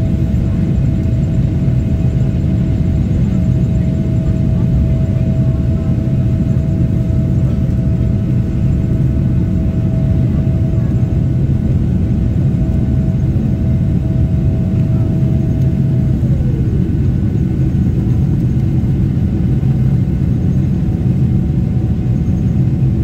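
Steady roar of a jet airliner's engines and airflow heard inside the passenger cabin during the climb after takeoff. A thin whine rides over the rumble and slides down in pitch about sixteen seconds in.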